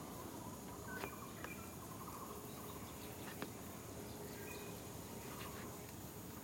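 Faint natural ambience in a bamboo grove: scattered short bird chirps over a steady, high insect hum, with two sharp clicks about a second and three and a half seconds in.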